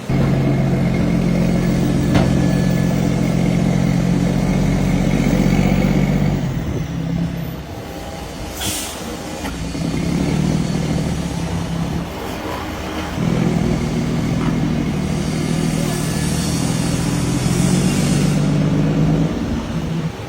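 Volkswagen Meteor truck's diesel engine revved and held high through an exhaust fitted with a diffuser, in long steady pulls: about six seconds, easing off, a shorter pull, then about six seconds more. A short hiss comes about nine seconds in.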